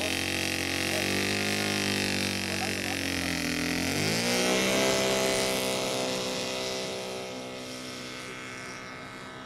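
Saito FA-200R3 three-cylinder four-stroke radial engine of a radio-controlled model plane, running at part throttle, then opened up about four seconds in with a quick rise in pitch for the takeoff run. It then holds full throttle and grows fainter as the plane climbs away.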